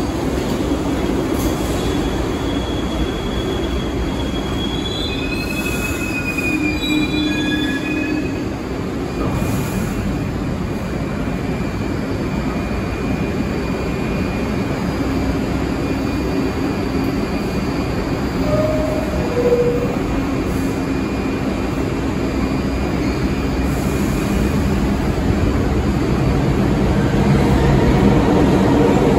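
New York City subway 1 train of R62A cars running along the station platform: a steady rumble of steel wheels on rail, with thin high wheel squeals that come and go over the first eight seconds and again through the middle.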